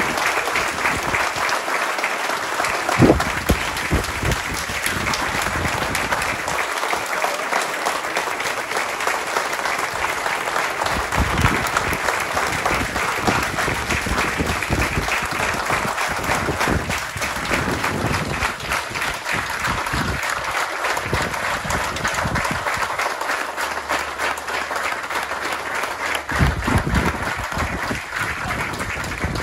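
Large audience clapping steadily throughout, with a single sharp knock about three seconds in.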